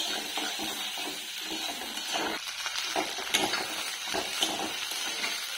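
Food sizzling in hot oil in a pan, with a utensil stirring it and clicking against the pan now and then.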